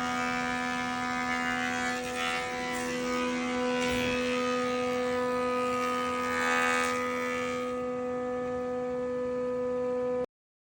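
A steady hum with a clear pitch and a stack of overtones, some of them shifting partway through; it cuts in and cuts off abruptly.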